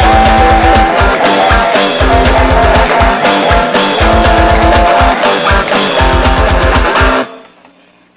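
Garage punk rock song with guitar and a fast, even drum beat, which stops about seven seconds in, leaving only a faint hum.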